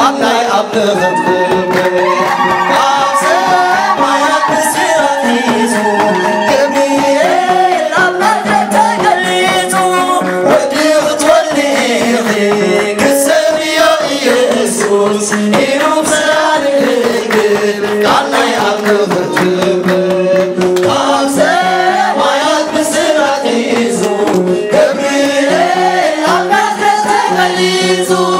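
Group singing of an Eritrean Orthodox hymn, with kebero drums beating and hands clapping along.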